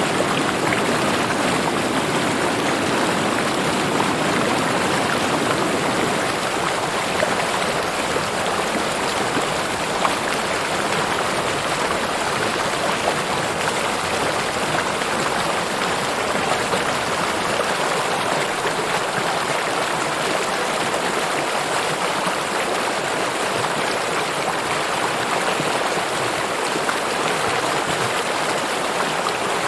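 River water flowing steadily over rocks: an even, continuous rushing.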